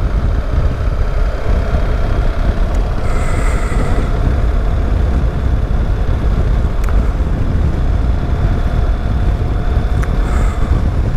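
BMW R1300 GS Adventure's boxer-twin engine running steadily while riding at about 40 km/h, heard from the rider's seat as a constant low rumble mixed with wind noise on the helmet microphone.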